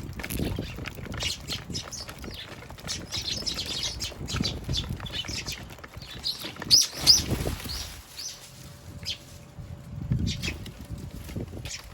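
Eurasian tree sparrows chirping busily, with fluttering wingbeats as birds come and go; the flurry is loudest about seven seconds in.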